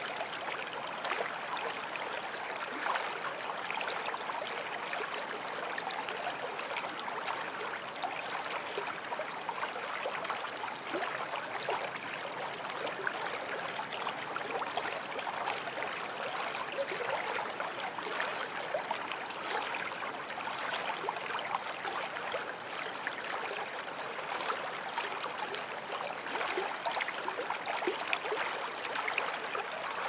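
Water of a stream flowing steadily, with a constant run of small gurgles.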